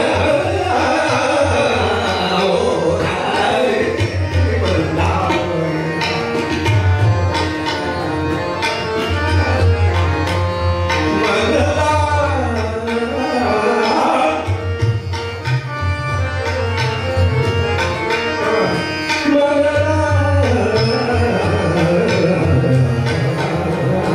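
Hindustani classical vocal performance: a male singer's voice glides through ornamented phrases over tabla strokes, the deep bass drum resonating, with harmonium accompaniment.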